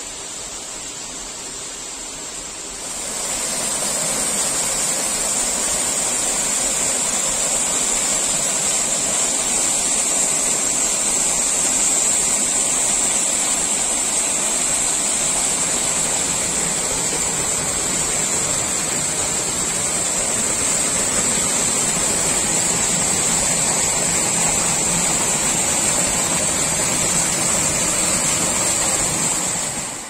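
Waterfall rushing, a steady roar of falling water that grows louder about three seconds in and then holds.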